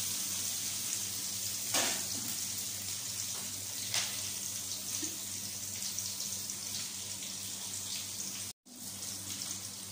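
Chopped onion, curry leaves and garlic sizzling in hot oil in a kadai, a steady hiss. There are two light clicks early on, and the sound briefly cuts out near the end.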